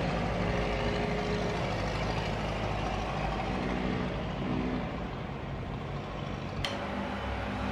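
Steady low engine rumble, as of a motor vehicle running or idling, with a single sharp click near the end.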